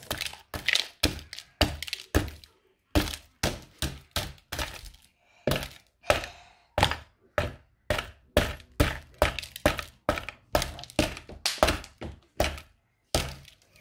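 A small hammer striking a frozen water balloon again and again, sharp knocks about two a second with a few short pauses, chipping ice away.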